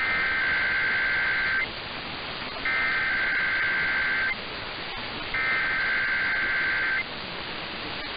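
Emergency Alert System SAME header for a Required Weekly Test: three identical two-tone digital data bursts, each about a second and a half long with about a second between them, over steady radio hiss.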